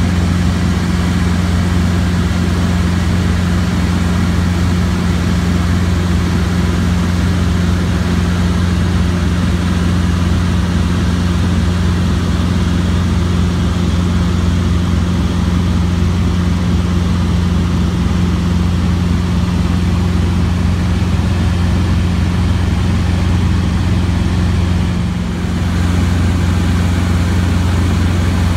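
Robinson R22 helicopter in flight: the steady, loud drone of its piston engine and rotors.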